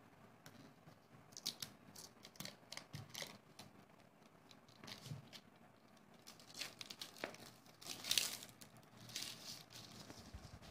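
Clear plastic shrink-wrap being torn and peeled off a phone's cardboard retail box, crinkling in a string of short crackles, the loudest about eight seconds in.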